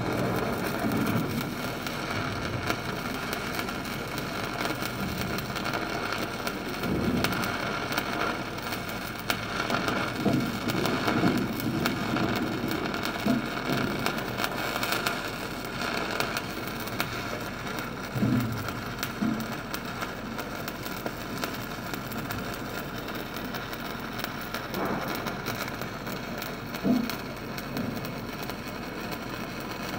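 Electric welding arc crackling steadily during an overhead weld, with a few short louder spits.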